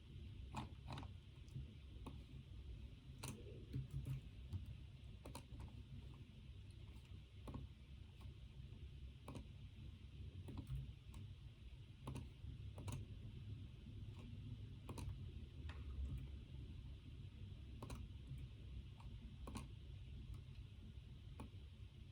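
Sparse, irregular clicking at a computer, a click every second or so, over a faint steady low hum.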